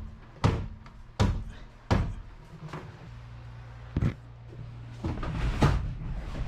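A series of sharp knocks, about four at irregular spacing, over a steady low hum, followed near the end by a longer, rough rattling or scraping noise.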